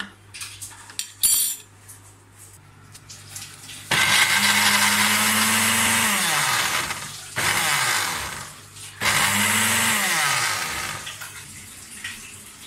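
Electric blender grinding green chillies with a little salt and water, run in three bursts, its motor whine falling in pitch as it winds down after the first and last. A few knocks come first, as the jug is handled.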